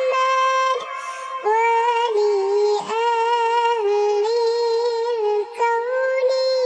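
A shalawat sung by a single high voice with no instruments, in long held notes with small melodic turns and brief breaks between phrases.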